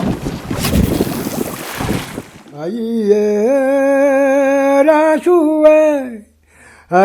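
A rushing, surf-like noise, then about two and a half seconds in a solo voice begins singing a slow chant-like line of long held notes that glide up and down. The voice breaks off briefly just before the end and starts again.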